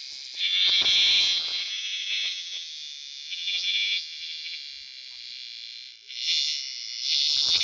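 Shrill, high-pitched buzzing call of a small animal that swells and fades: loud about a second in, softer through the middle, and loud again near the end. A brief low-pitched sound sits under it about a second in.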